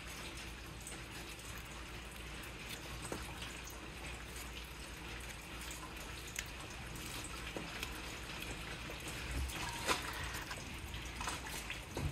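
Faint scattered clicks and scrapes of hand-work on an engine's drive belt and spanner-held tensioner, over a steady background hiss, with one sharper click about ten seconds in.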